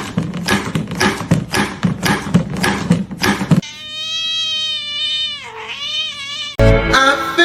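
Cat vocalising: a rapid string of short cries, about four a second, then a long wavering meow of about three seconds that dips in pitch. A loud new sound breaks in near the end.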